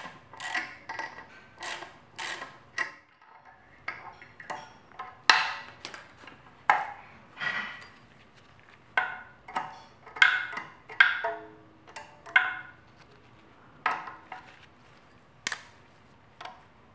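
Irregular sharp metal clinks and taps, about two dozen, some with a short ring, from working a compressed valve spring, retainer and valve loose on a cylinder head.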